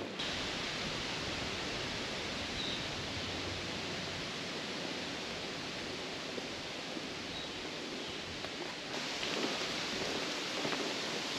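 Steady rushing hiss of outdoor ambience. It turns brighter about nine seconds in, with a few faint ticks after.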